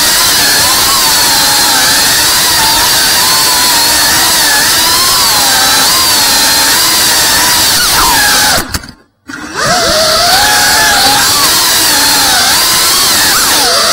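FPV quadcopter's brushless motors and propellers whining, the pitch wavering up and down as the throttle changes. About nine seconds in the sound cuts out for about half a second, then the motors spool back up with a rising whine.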